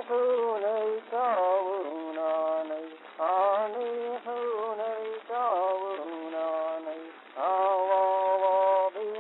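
Wordless singing in a melodic soundtrack: phrases that open with a sliding bend in pitch and settle into held notes, a new phrase starting every second or two.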